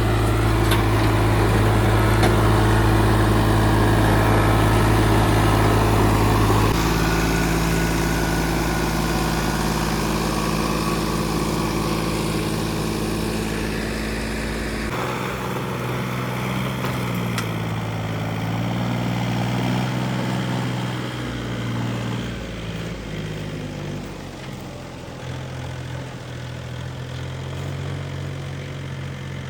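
Heavy diesel engines of earth-moving and farm machinery running steadily, the pitch stepping down about a quarter of the way in. About halfway through the sound changes abruptly to a quieter engine whose pitch dips and rises again for a few seconds, as under changing load.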